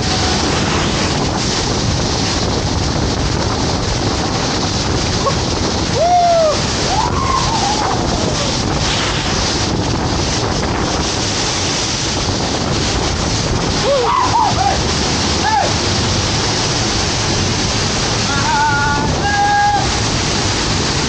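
Byrdaw Falls, a large waterfall, pouring down close by: a loud, steady roar of falling water and spray.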